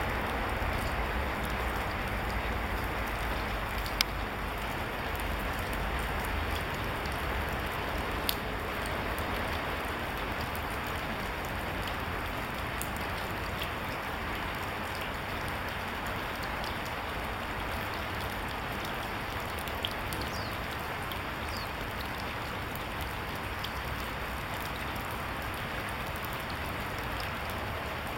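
A steady, even hiss throughout, broken by three brief sharp clicks: one about four seconds in, one about eight seconds in, and a fainter one near twenty seconds.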